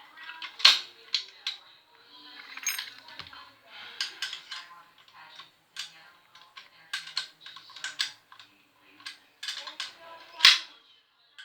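Irregular sharp clicks and metal clinks of hand tools and mounting hardware being worked on a bicycle frame, with a louder knock under a second in and another near the end.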